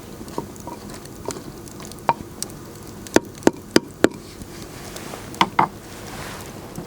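Open cooking fire crackling: a handful of sharp pops over a steady low background, four in quick succession about three seconds in and two more near the end.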